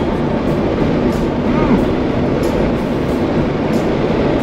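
Pickup truck running, a steady loud rumble of engine and road noise with a faint high tick repeating about every two-thirds of a second.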